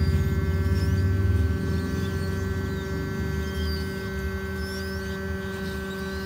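Hot-air rework gun blowing on a phone circuit board's SIM socket: a steady hum with several high whining tones from the blower. It is heavier and louder for the first second and a half, then settles to a lower steady level.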